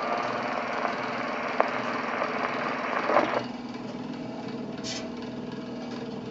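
Wind-up horn gramophone running on past the end of a 78 rpm shellac record: the needle hisses and crackles in the run-out groove through the horn, with a few clicks. About three and a half seconds in this drops to the quieter steady running of the spring motor and turntable once the soundbox is lifted. A sharp clunk comes at the very end as the brake lever is worked.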